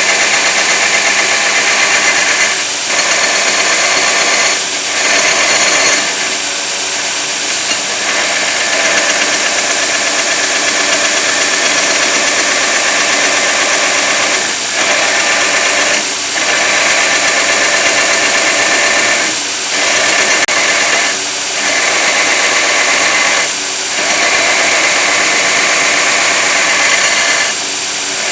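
A power grinder running steadily against the steel of a knife blade, with short dips in loudness every few seconds.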